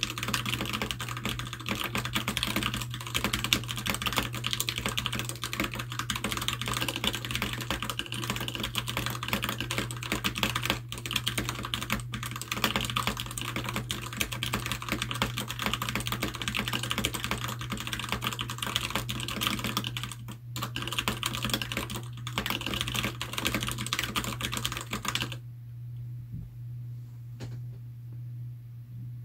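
Fast, continuous typing on a Keychron K6 mechanical keyboard with stock, unlubricated Gateron Red linear switches, the keys clacking rapidly. The typing stops near the end, leaving only a couple of faint clicks.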